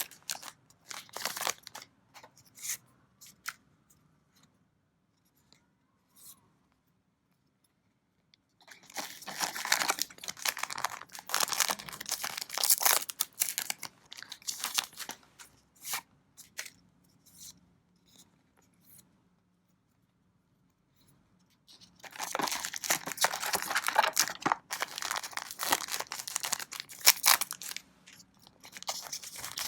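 Plastic wrapping on a trading-card booster box being torn open and crinkled by hand. It comes in two long spells of crackling, one starting about a third of the way in and one about three quarters in, with quiet pauses and odd small rustles between them.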